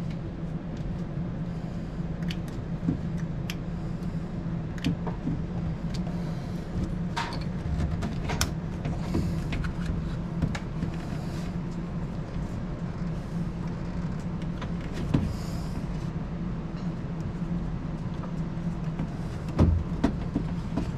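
Steady low mechanical hum, with scattered small plastic clicks and taps as a test light's probe is worked into a door wiring connector.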